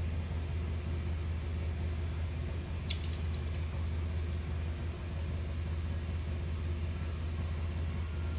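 A steady low hum at an even level, with a few faint light clicks about three to four seconds in.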